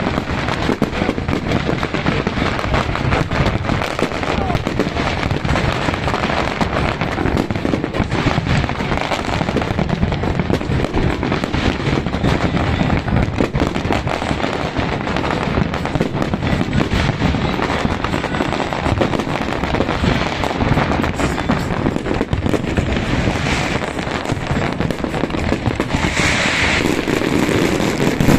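Large fireworks display: a continuous barrage of bangs and crackles with no pause.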